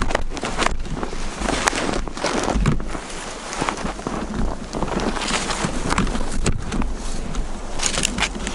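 Footsteps through deep, frozen snow, an irregular run of crunches, with low wind noise on the microphone.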